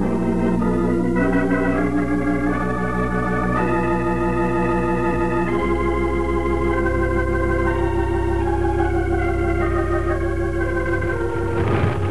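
Organ music bridge marking a scene change in a radio drama: held chords that shift every second or two over a sustained low bass note.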